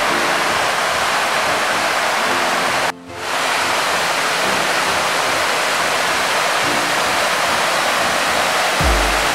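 Rushing water of a rocky creek and small waterfall, a steady loud hiss, with soft background music beneath. The water sound cuts out suddenly for a moment about three seconds in, then returns.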